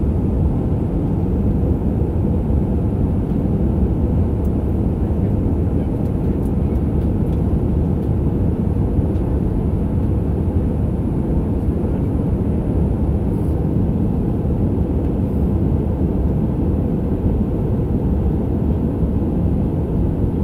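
Jet airliner's engines and airflow heard from inside the passenger cabin during the climb after takeoff: a steady, low-pitched noise that holds an even level throughout.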